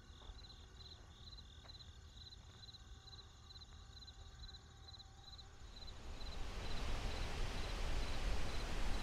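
Insects chirping in short, regular pulses, about two and a half a second, over a low rumble. From about six seconds a broad rushing hiss swells up and grows louder.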